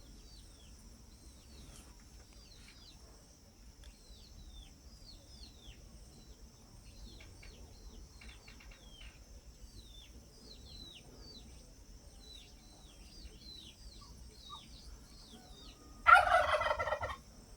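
Small birds chirping in short, falling notes over a steady high-pitched hum. A turkey gobbles loudly once, about a second long, near the end.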